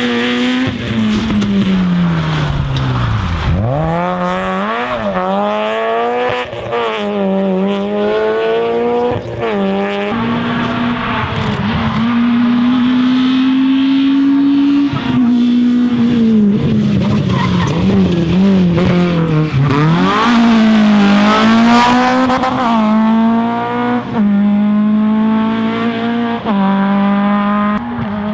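Rally car engine revving hard, its pitch climbing and dropping repeatedly through gear changes, with a long high-revving stretch in the middle.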